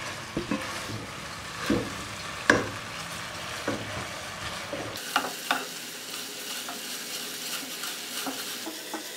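Sugar-and-water syrup bubbling and sizzling in a nonstick pot as it cooks toward caramel, stirred continuously with a spatula, with a few light taps and scrapes of the spatula against the pan.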